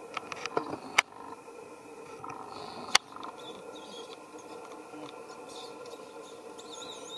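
Steady forest background with faint high squeaks and chirps, and two sharp clicks about one and three seconds in.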